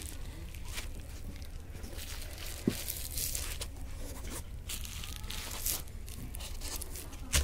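Packaging rustling and crinkling as a non-woven fabric bag is handled on bubble wrap, in irregular short rustles, with one sharp knock a little under three seconds in.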